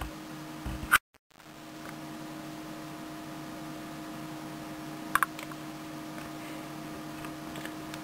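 Steady low hum of a desktop computer in a small room. The sound cuts out briefly about a second in, then returns, and two quick sharp clicks come about five seconds in.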